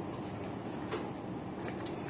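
Steady low background hum with a faint click about a second in and another near the end.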